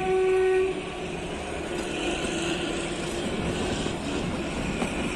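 Kalka–Shimla narrow-gauge toy train: its horn sounds one steady note that stops less than a second in, then the moving train's running rumble and rattle of wheels on track.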